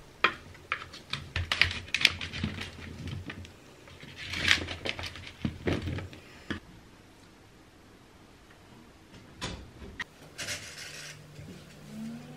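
A plastic slotted spatula clattering and scraping against a metal baking tray as chopped vegetables are turned and spread: a quick run of sharp taps and clicks, a scrape, more taps, then after a lull a couple of knocks and a short scrape near the end.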